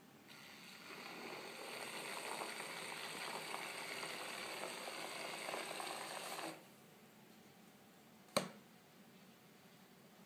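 Small motor of a mixer bottle spinning its whisk through a shake, running steadily for about six seconds and then stopping suddenly. A single sharp click comes about two seconds later.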